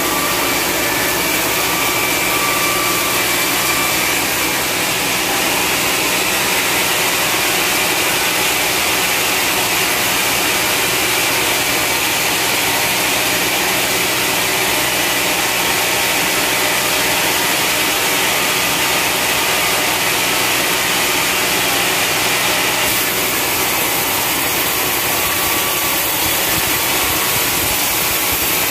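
Sawmill vertical band saw running steadily as its blade rips lengthwise through a long, dry hardwood log.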